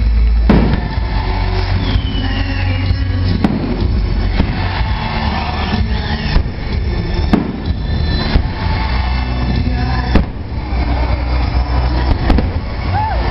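Aerial fireworks shells bursting, a sharp bang every few seconds over a steady low rumble.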